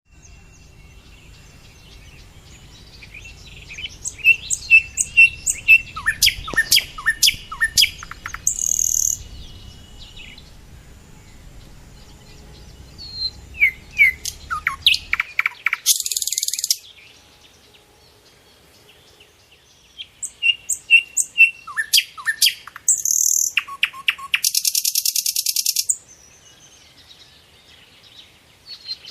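Birds calling in three bouts of quick, sharp chirps, several a second, each bout ending in short harsh rasping calls, with pauses of a few seconds between bouts. A low rumble lies under the first half and stops about halfway.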